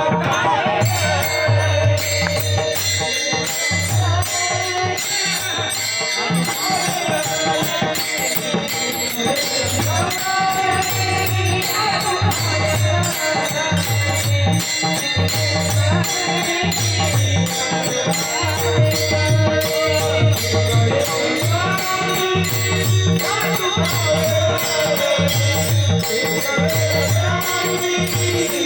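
Devotional folk music without words: a fast, steady beat of jingling, rattling percussion over a repeating low drum, with a melody line wavering above it.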